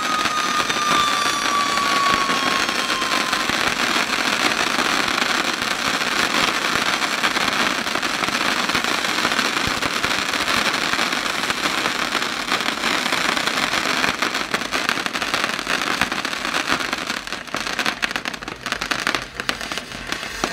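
Fireworks crackling and fizzing in a dense, continuous crackle, with a whistle falling in pitch over the first few seconds. Near the end the crackle thins into separate sharp pops.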